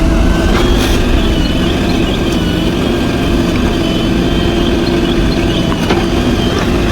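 Heavy diesel engine running steadily under work, with a short knock about six seconds in.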